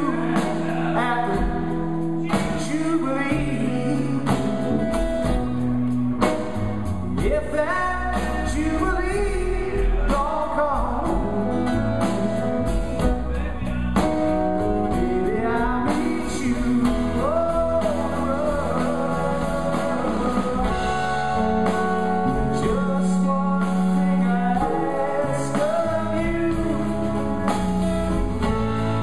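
Live band music: an electric guitar played through a Two-Rock Classic Reverb tube amp, with acoustic guitar, bass guitar and drums, playing continuously.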